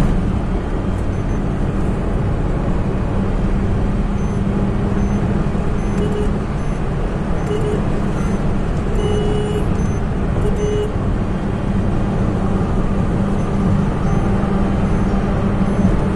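A car driving at highway speed, heard from inside the cabin: steady engine and tyre rumble.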